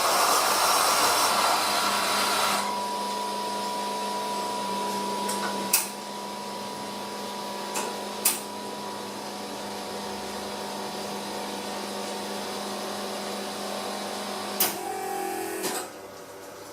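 Talento super-automatic coffee machine making a cappuccino. For the first two and a half seconds or so there is a loud whirring burst from the grinder. Then a steadier, quieter machine hum runs with a few sharp clicks, and it stops shortly before the end.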